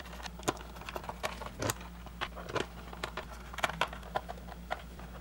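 Small screws being driven by hand with a screwdriver into the plastic back of a BMW gauge cluster: irregular light clicks and ticks of the screwdriver tip, screws and plastic, over a faint steady hum.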